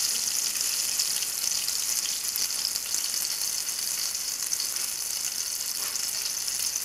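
Egg-and-flour-coated chicken slices frying in hot canola oil in a frying pan: a steady, high sizzle with fine crackling.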